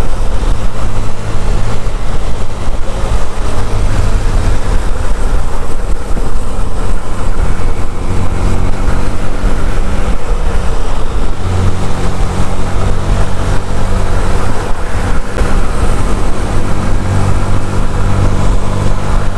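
125cc motorcycle engine running at steady road speed, easing and picking up a little, with wind rushing over the microphone.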